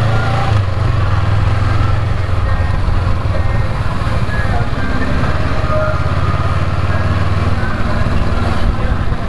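Honda CB500X's parallel-twin engine running while riding at low speed: a steady low rumble.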